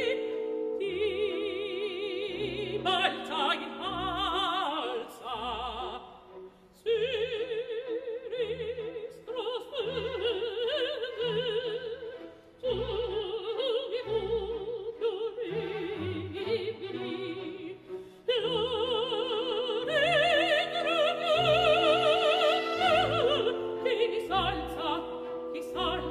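Solo mezzo-soprano singing an Italian operatic aria with a wide vibrato over a light orchestral accompaniment. There are short breaks between phrases, about a third and two-thirds of the way through.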